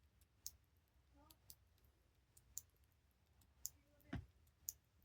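Combination padlock number wheels clicking as they are turned one detent at a time, single sharp clicks roughly once a second, with a duller knock about four seconds in.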